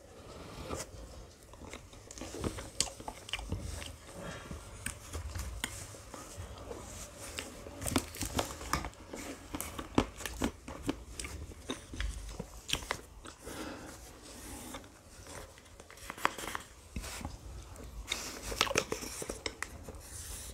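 A person eating ice cream close to the microphone: irregular bites and crunches with chewing between them, full of sharp wet clicks and smacks.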